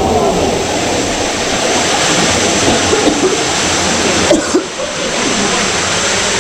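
Steady rushing water of a waterfall, a dense hiss, with a brief lull about four and a half seconds in.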